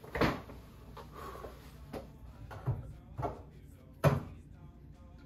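A handful of knocks and clunks from objects being handled and set down, the loudest about four seconds in.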